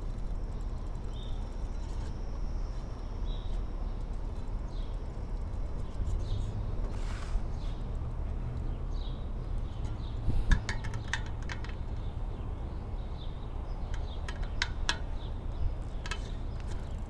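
A few light metallic clinks from work on a bicycle wheel being trued, bunched about ten seconds in and again near the end, over a steady low background rumble.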